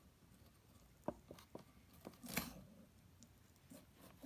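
Faint handling of a Mossberg 500 shotgun and its freshly removed magazine plug: a few small clicks about a second in, then a brief rustle a little past two seconds in.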